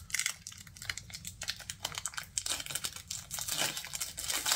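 A foil Pokémon booster-pack wrapper being torn open and crinkled by hand, a quick string of crackles and rips.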